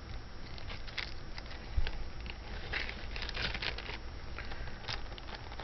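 A small plastic bag crinkling and rustling, with light clicks of costume jewelry, as the next piece is handled and taken out of its bag. There is a soft low thump about two seconds in.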